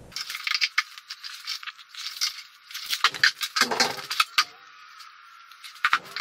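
Irregular clicks, rattles and light knocks, thin and tinny with the low end missing, from plywood pieces being laid out and shifted on a wooden workbench.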